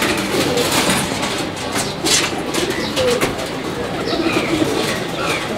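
A flock of pigeons cooing, with scattered short clicks among them, as they crowd in to eat scattered feed.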